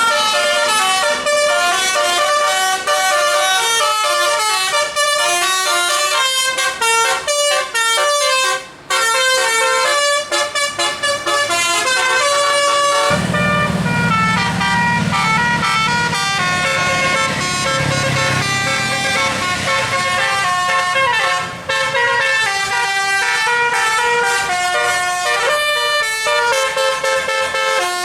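Bus telolet, a multi-note musical air horn, playing a fast tune of stepped notes without a break. About halfway through, a low engine rumble joins underneath.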